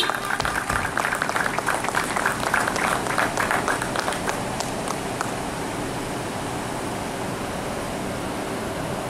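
Scattered clapping and cheering from a crowd, dying away about five seconds in and leaving a steady hiss.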